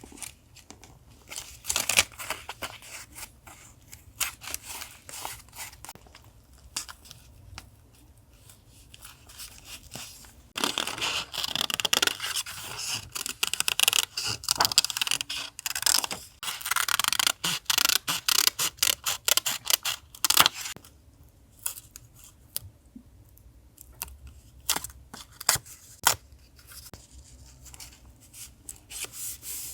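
Paper journal and collage materials being handled: scattered taps and light rustles, with a dense stretch of scratchy paper noise from about ten to twenty seconds in.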